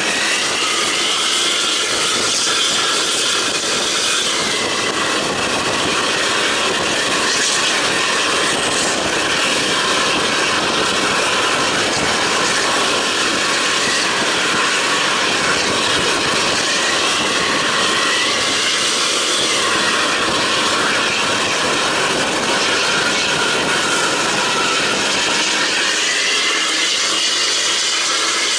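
Steady road and engine noise of a vehicle travelling at highway speed, with a high whine that rises and falls slowly a few times.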